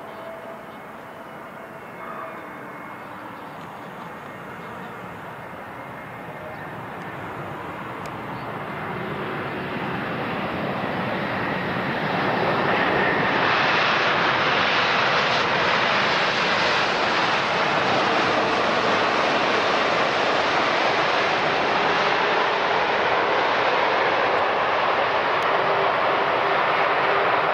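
Airbus A320neo jet engines on the takeoff roll. At first a quieter engine hum with a faint steady whine, then swelling over several seconds to full takeoff thrust, which holds loud and steady for the second half.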